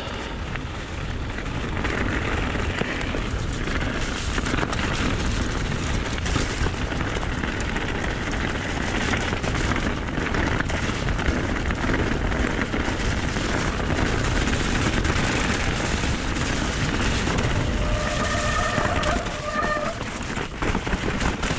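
Mountain bike riding fast down a gravel and rocky forest track: tyres crunching and rattling over stones, with heavy wind rush on the GoPro's microphone that builds as speed picks up in the first couple of seconds. Near the end comes a brief high squeal.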